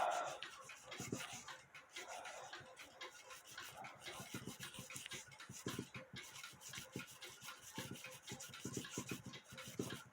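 Hand scrubbing of a dirty, rusty cuckoo clock movement coated in furniture cleaner: irregular rubbing strokes, one after another.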